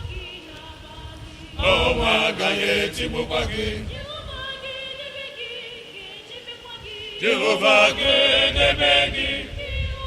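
Church congregation chanting together in many voices, swelling louder twice, about two seconds in and again about seven seconds in.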